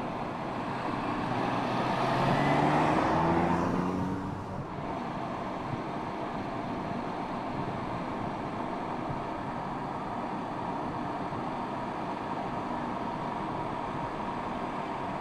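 MINI Cooper Convertible driving past with its engine note climbing as it accelerates, loudest about three seconds in. After that comes a steady rush of road and tyre noise.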